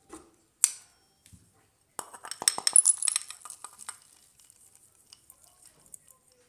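Steel mixer-grinder jar clinking against a bowl as coarsely ground peanuts are tipped and tapped out of it: a sharp clink under a second in, then a clattering run of taps and rattling peanut pieces from about two seconds in that trails off.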